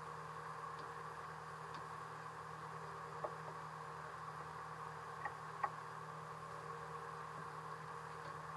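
Boat engine running steadily, a muffled hum, with three faint clicks about three and five and a half seconds in.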